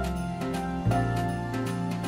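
Background music: sustained chords over a deep bass note that changes about a second in, with a light, regular ticking beat.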